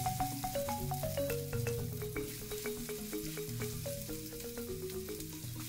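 Sliced onion and garlic sizzling steadily in hot oil in a frying pan as a spatula stirs them, under background music of quick single notes.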